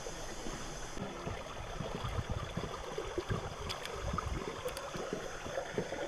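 Shallow river water splashing and sloshing, with irregular low thuds, as people wade and work in it.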